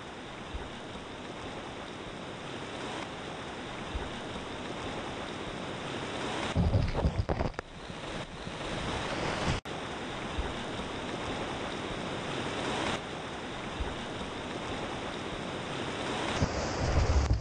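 Whitewater rapids rushing steadily around a creek kayak, with surges of low rumbling buffeting as water splashes over the camera, about seven seconds in and again near the end.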